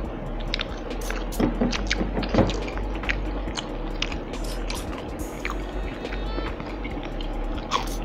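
Close-miked chewing and crunching of crispy breaded fried chicken strips: many short, sharp crunches and mouth clicks scattered throughout. Soft background music runs underneath.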